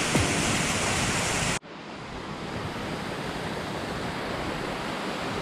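Steady rushing of falling water from a waterfall with a low flow. About a second and a half in, the rush cuts abruptly to a quieter, duller level and then continues steadily.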